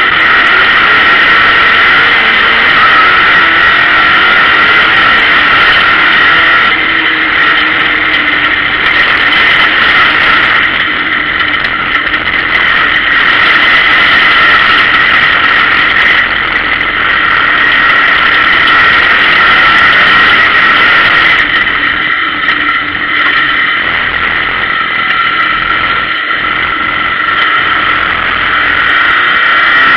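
Race car's engine running hard under racing load, heard from inside its stripped, roll-caged cabin, with a steady high whine over it. The engine note shifts with the driving and eases off a little after about twenty seconds.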